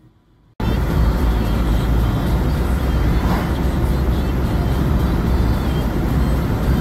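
Steady road and wind noise inside a moving vehicle, a dense low rumble that cuts in suddenly about half a second in.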